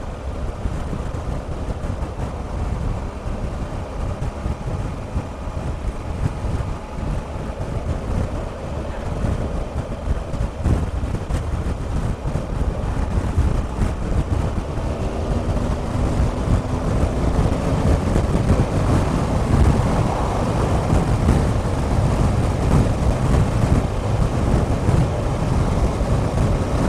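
Wind buffeting a motorcycle-mounted camera's microphone, over the running of a Triumph Explorer's three-cylinder engine. Past the middle the engine note climbs and grows a little louder as the bike accelerates past a car.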